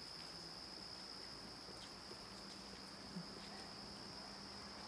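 Crickets trilling steadily in one continuous high-pitched chorus.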